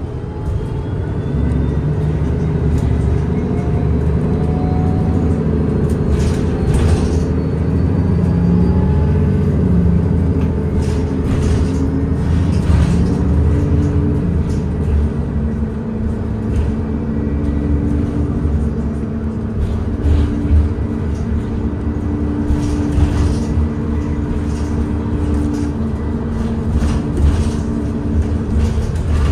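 Cabin of a 2021 Nova Bus LFS diesel-electric hybrid bus under way: a steady low rumble, with a drive whine that rises in pitch during the first half and then holds a steady pitch. Brief rattles from the body come and go throughout.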